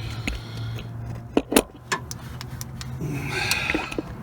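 Handling noise as a camera is moved and set in place: several sharp clicks and knocks, the loudest two close together about a second and a half in, then a brief rattle near the end, over a steady low hum.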